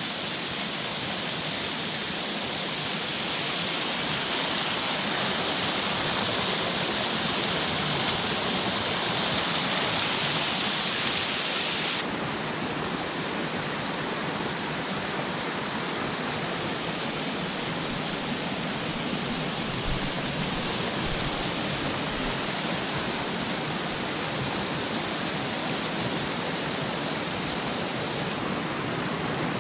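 A small mountain stream rushing over rocks and a little cascade: a steady rush of water, its tone shifting abruptly about twelve seconds in.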